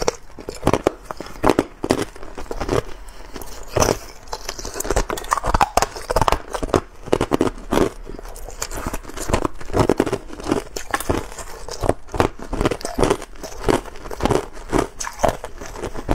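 Hard clear ice being crunched and chewed in the mouth: a quick, irregular run of sharp crunches and cracks.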